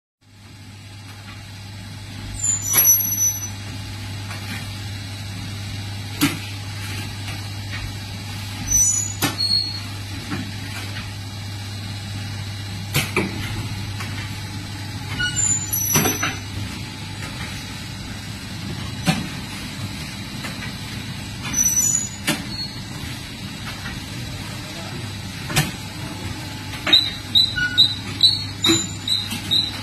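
Oil pouch packaging machine running with a steady hum, giving a click and a short hiss about every three seconds as it cycles. Near the end a quicker run of ticks sets in, about two a second.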